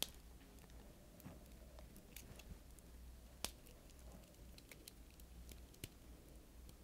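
Near silence with faint clicks and rustles of nylon trimmer line being wound and hooked onto the cleats of a plastic Bosch grass trimmer spool, with a sharper tick about three and a half seconds in and another near six seconds.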